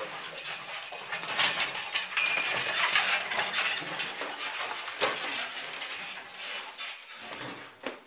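A horse-drawn carriage clattering and rattling as it arrives, with many small clicks and knocks. It is loudest about two to three seconds in, then eases off.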